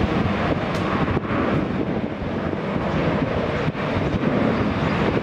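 Boeing 737-800's CFM56-7B jet engines at takeoff thrust, a steady loud roar during the takeoff roll, with wind noise on the microphone.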